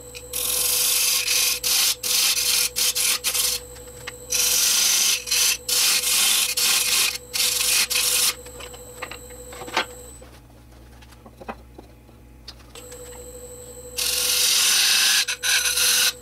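Laguna Revo 18|36 wood lathe running with a steady hum while a turning gouge cuts the spinning Afghan pine blank, sending off shavings: loud, hissing cutting noise in three spells, the first two broken up into stop-and-start cuts, with a quieter stretch of just the lathe running in between.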